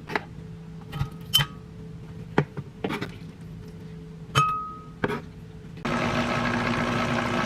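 Kitchenware clinking and knocking about a dozen times, a few strikes ringing briefly like glass or ceramic. About six seconds in, background music comes in loudly.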